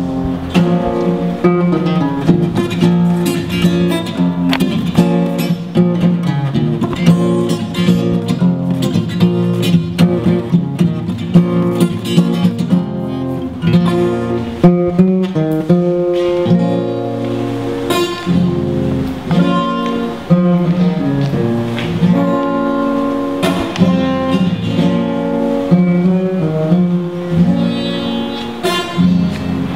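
Acoustic guitar playing an instrumental passage alone, a run of strummed and plucked chords.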